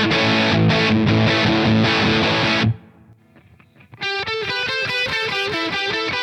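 Dean Avalanche electric guitar played through distortion: sustained chords that are cut off abruptly about two and a half seconds in, then after about a second's pause a fast picked riff of single notes.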